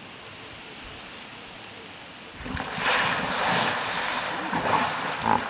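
A group of hippos suddenly surging and thrashing in the water, a loud churning splash that starts about two and a half seconds in and carries on to the end. Before it there is only a steady, soft outdoor hush.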